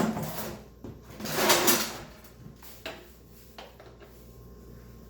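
Handling noise as shop towels are grabbed: a sharp knock at the start, then about a second of loud paper rustling, then a few light clicks.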